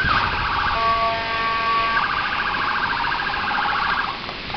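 Ambulance siren passing on the street. A fast warble gives way to several steady held tones at once, then the fast warble returns and fades away a little before the end.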